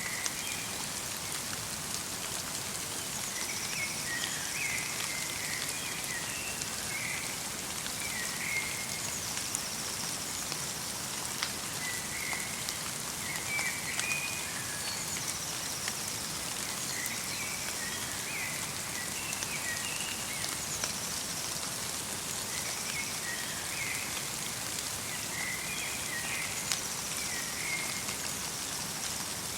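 Steady light rain falling in a forest, with occasional sharper drips, while small birds twitter in short bursts of chirps throughout.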